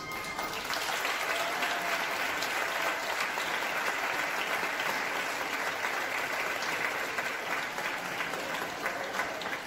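Audience applauding in a steady round of clapping.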